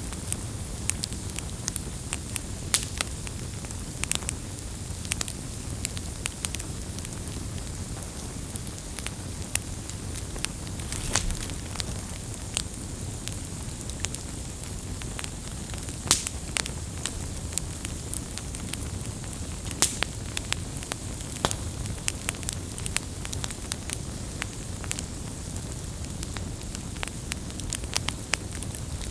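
Wood campfire burning: a steady low rumble of flame with irregular sharp crackles and pops, a few louder snaps scattered through.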